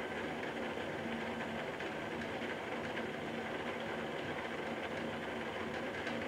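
A 3D-printed plastic planetary gearbox driven by a brushless motor runs at a steady speed, with its plastic gear teeth meshing in an even whirring grind over a steady low hum. The motor is making 28 turns for one turn of the output.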